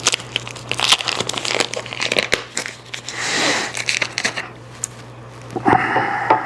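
Camera retail box and its packaging being opened by hand: crinkling and crackling with quick clicks, and a longer rustling swish about three seconds in.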